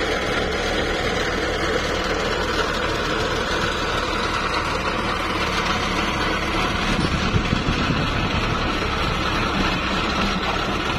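Hyundai 220-9SH excavator's diesel engine running steadily at idle.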